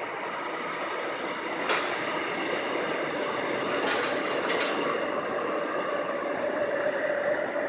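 Seoul Subway Line 9 express train running through the station at speed without stopping: a rumble of wheels on rail that builds as it passes. Sharp clicks come once early on and twice more around the middle. A steady whine sounds in the second half.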